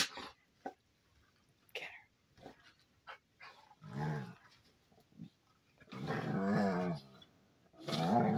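Two dogs play-fighting, growling at each other: a short growl about four seconds in, a longer one from about six to seven seconds, and another starting near the end. Before that, scattered soft clicks and rustles.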